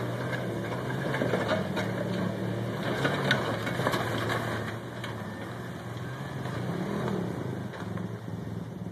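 4x4 engine running steadily at low revs, with scattered knocks and clicks as a lifted Jeep Cherokee on mud tyres crawls up a rocky trail. It fades slightly in the second half.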